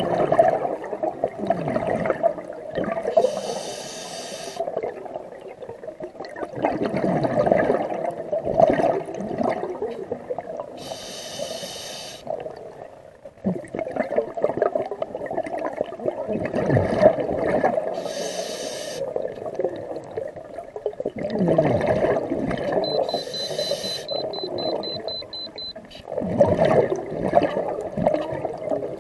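Scuba diver breathing underwater through a regulator: long bubbling exhalations, each followed by a short hissing inhalation, about one breath every seven seconds.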